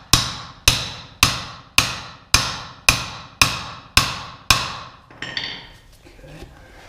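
Hammer striking a metal rod used as a drift, nine sharp blows about two a second, each with a short ring. The blows drive a press-fit wrist pin out of a Dodge 4.7L V8 piston and connecting rod, which takes repeated force. They stop after about four and a half seconds.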